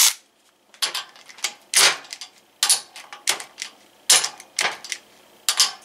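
Hand tools being handled at a metal workbench and vise: a string of irregular clicks and clinks, unevenly spaced.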